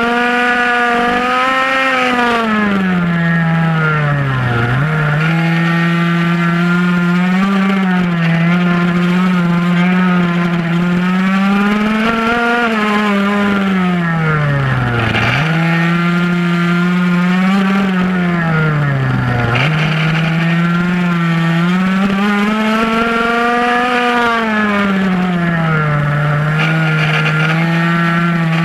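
Minimoto racing pocket bike's small two-stroke engine at high revs, heard onboard, its pitch climbing and falling with the throttle through the corners and dropping sharply three times, about 5, 15 and 20 seconds in, as the rider backs off.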